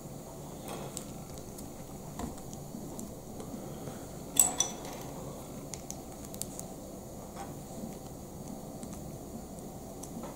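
Small plastic Lego minifigure parts clicking and tapping as they are handled and pressed together, with one sharper click about four and a half seconds in, over a faint steady hiss.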